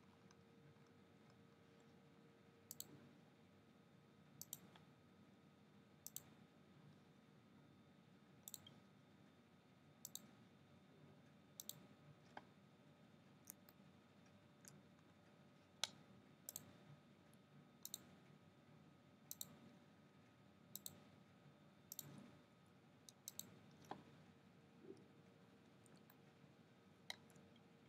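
Sharp, faint clicks of a computer pointing device, one every second or two and sometimes in quick pairs, as the eraser tool removes lines. Underneath is a low steady hum and hiss.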